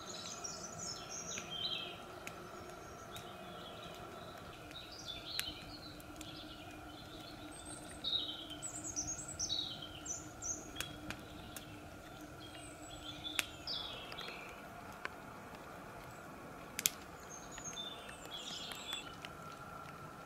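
Small birds chirping and calling on and off, with a few sharp, isolated pops from a wood campfire crackling; one pop about 17 seconds in is the loudest sound.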